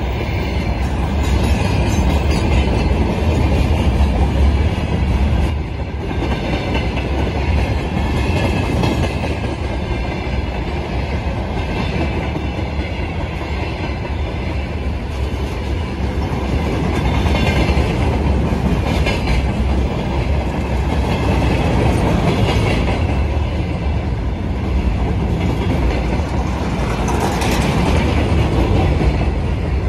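Freight train wagons (hopper cars, gondolas and flatcars) rolling past at speed: a steady rumble, with the wheels clacking over the rail joints in regular beats.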